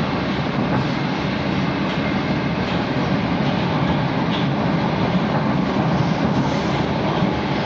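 Moskva-2020 metro train running at speed through a tunnel, heard from inside the car: a steady rush of wheel and tunnel noise.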